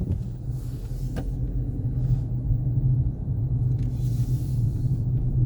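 Car running, a steady low rumble of engine and road noise heard from inside the cabin.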